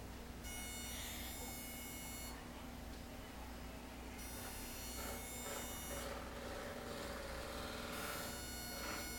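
Gas-filled plasma-tube therapy machine running: a steady low electrical hum, with a high-pitched buzz that switches on and off every couple of seconds.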